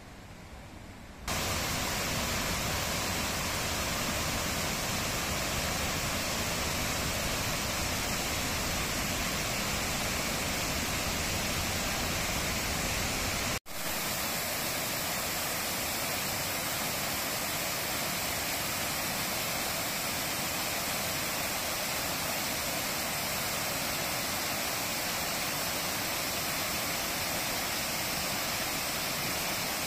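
Waterfall, the steady rush of falling water. It comes in about a second in, breaks off for an instant near the middle, and resumes unchanged.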